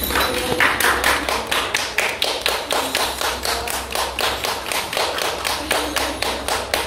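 Rapid, even tapping, about four to five sharp taps a second, kept up steadily.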